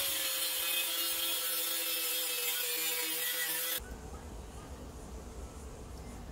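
Ozito angle grinder cutting steel flat bar: a loud grinding hiss over a steady motor whine for about four seconds. The whine stops abruptly, leaving a quieter low rumble.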